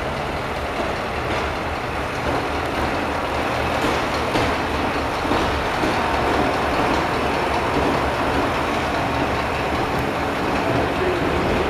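Romanian LDH diesel-hydraulic locomotive running as it moves through the station, a steady rumble.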